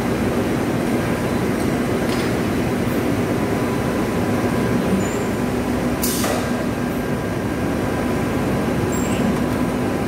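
Cotton blowroom machinery running steadily: a continuous rush of air and machine hum with a steady low tone. A single sharp click sounds about six seconds in.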